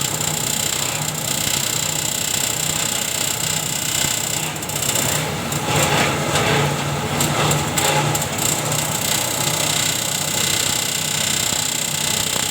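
Motorised multi-purpose chopper machine running steadily with a low hum and a high whine, turning rougher and louder for a few seconds about five seconds in.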